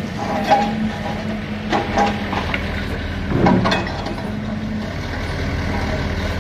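A steady low engine rumble with a constant low hum, with a few brief louder sounds over it.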